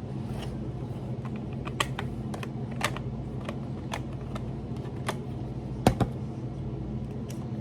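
Irregular small sharp clicks and ticks of hands handling small plastic toy packaging and accessory pieces, the loudest a double click about six seconds in, over a steady low hum.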